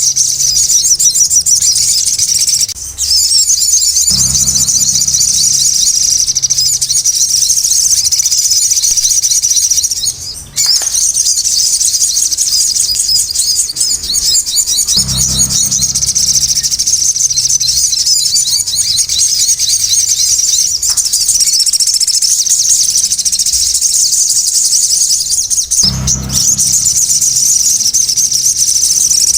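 Sogon songbird chattering in a continuous, rapid, high-pitched twitter, breaking off briefly about three seconds and ten seconds in. It is the loud, busy 'ribut' song that keepers play to set a quiet sogon singing.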